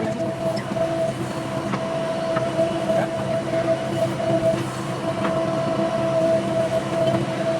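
JCB backhoe loader's diesel engine running steadily under work, with a steady high whine held over the engine note.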